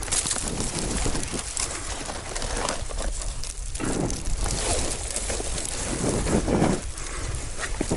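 A hiker's heavy breathing, coming in repeated gasping breaths about once a second, over steady rustling from climbing a very steep slope.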